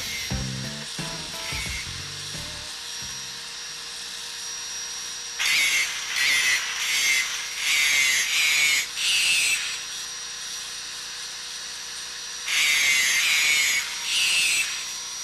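A power grinder grinding metal in a run of short loud passes, each about half a second to a second long, from about five seconds in, with two more passes near the end. A few low musical notes fade out at the start.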